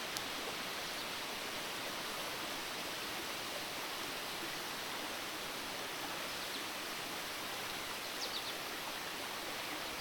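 A steady, even hiss with no distinct events, and a few faint high ticks about eight seconds in.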